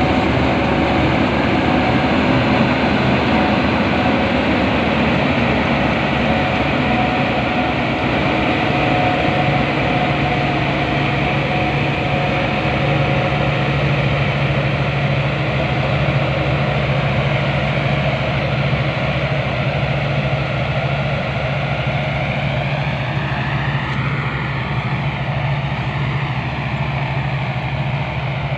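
Combine harvester running steadily while harvesting rice: a continuous engine drone mixed with the churning of its cutting and threshing machinery. It grows a little fainter toward the end as the machine pulls away.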